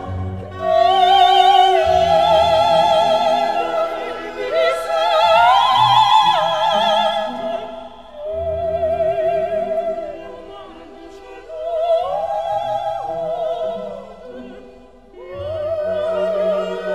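Operatic singing with orchestral accompaniment: a high solo voice holds long notes with wide vibrato, phrase after phrase.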